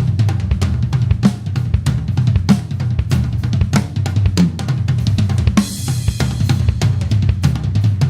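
A Premier XPK drum kit played in a steady groove of bass drum, snare and hi-hat hits. A cymbal crash rings out about five and a half seconds in.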